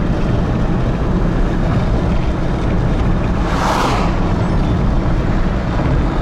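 Steady low rumble of road and engine noise inside a moving Daewoo Matiz, with a short rushing sound about three and a half seconds in.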